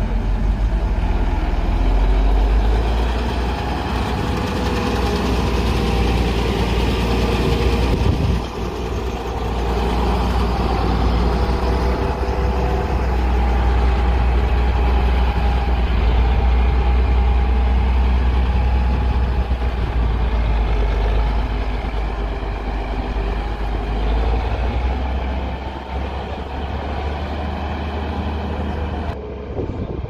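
Caterpillar 14H motor grader's diesel engine running under load as it blades loose sand, a loud, steady low rumble. It drops away near the end.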